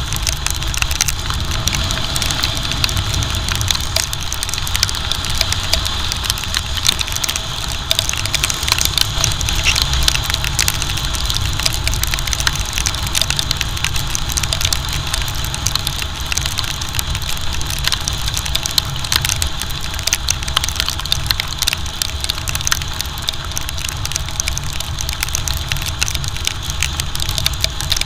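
Motorcycle riding at speed in rain: wind rushing over a body-mounted camera as a heavy low rumble, with a steady crackle of raindrops hitting the camera and the rider's rain jacket, and the bike's engine running underneath.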